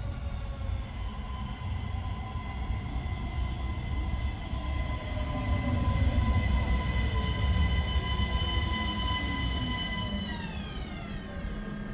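ÖBB Cityjet (Siemens Desiro ML) electric multiple unit pulling into an underground platform: low wheel rumble under a steady high electric whine. Near the end the whine falls in pitch as the train brakes to a stop.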